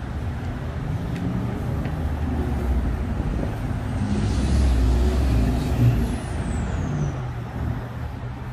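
A heavy road vehicle, a bus or truck, passing close by: a low engine rumble that swells to a peak about five seconds in and then fades. Near the peak a high whine rises and then drops steeply in pitch.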